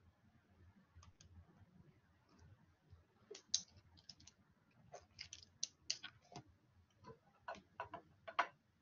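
Faint, irregular clicking of computer keyboard keys being typed, in scattered short runs that grow busier and louder in the second half.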